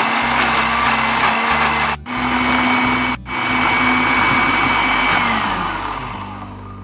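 Electric countertop blender running at speed, chopping sweet corn kernels into a coarse paste, with two short breaks. Near the end its whine falls in pitch and the motor winds down to a stop.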